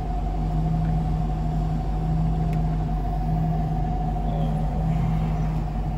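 1995 Suzuki Katana GX's 1000cc SOHC engine idling steadily with the air conditioning switched on, heard from inside the cabin.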